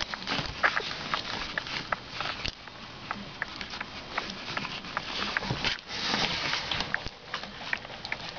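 Litter of 15-day-old Boston Terrier puppies sniffing and shuffling about, with a steady run of small clicks and scratches and a denser patch of rustling about six seconds in.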